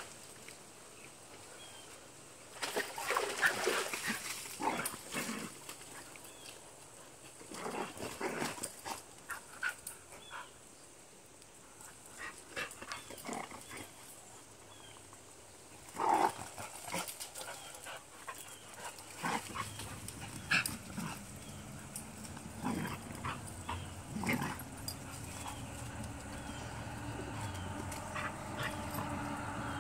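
Two dogs play-fighting, with short bursts of dog vocalizing every few seconds. A steady low hum builds up over the last ten seconds.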